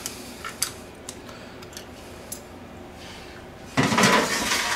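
A few light clicks as a spatula and utensils are set down on a counter, then, near the end, a loud scrape of a stainless steel mixing bowl dragged across a granite countertop.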